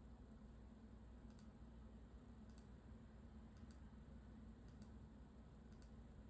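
Near silence: faint room hum with a faint, high double click about once a second.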